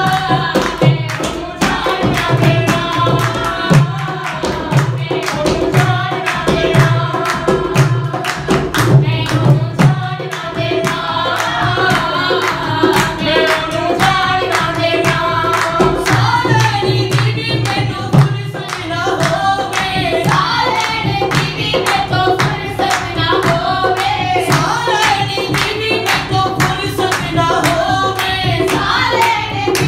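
Group of voices singing a Punjabi devotional song to Jesus, to the beat of a dholak drum and steady hand clapping.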